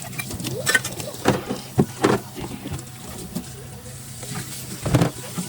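Dishes and utensils knocking and clinking while being washed up at a kitchen sink: a handful of sharp knocks, the loudest about five seconds in.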